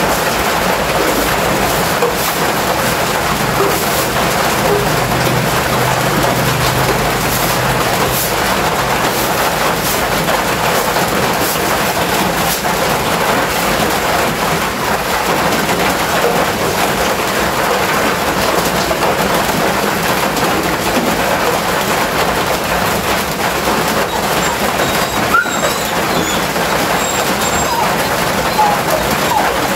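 Steady rushing hiss of water, with a faint low hum for several seconds near the start and a few small clicks.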